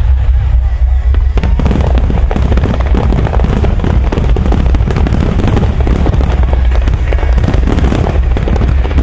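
A dense barrage of fireworks, many crackling bursts overlapping with heavy low booms, thickening about a second and a half in, over show music from loudspeakers.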